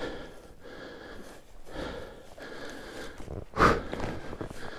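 A person breathing hard after exertion, with noisy breaths and one loud exhale about three and a half seconds in.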